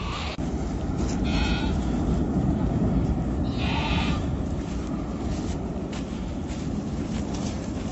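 A sheep bleating twice, a short call about a second in and a longer one about three and a half seconds in, over a steady low rumble.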